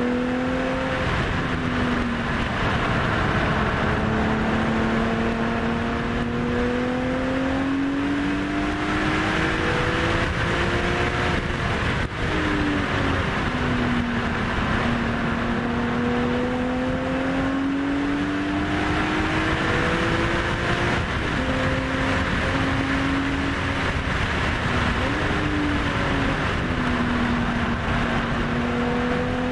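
2002 BMW E46 M3's straight-six engine, fitted with aftermarket headers, high-flow cats and a Dinan muffler, heard from inside the cabin while lapping a track. The engine note climbs under acceleration and drops back several times as the car shifts and brakes for corners, over steady wind and tyre noise.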